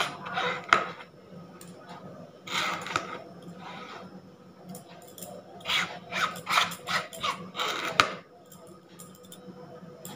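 A metal spoon scraping thick strained yogurt out of a bowl in short strokes, in three bursts, with a sharp tap of the spoon on the bowl just under a second in and another about 8 s in.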